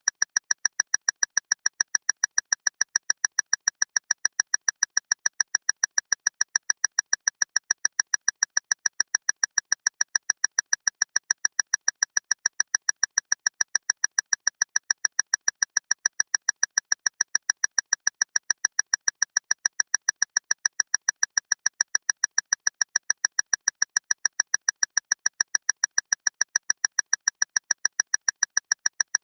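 Loud clock ticking fast and evenly, about four sharp ticks a second, each with a bright, high ring.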